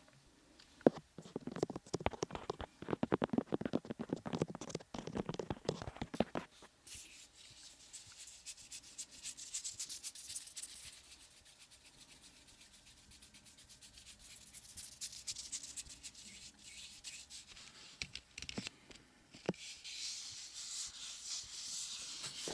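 Close rubbing and scratching against the microphone, dense and irregular for the first six seconds, then softer hissy brushing in stretches.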